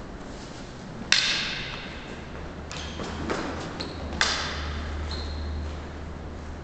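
Wooden canne de combat canes striking in a bout: two sharp cracks, about a second in and again about three seconds later, each ringing briefly, with lighter clicks between them.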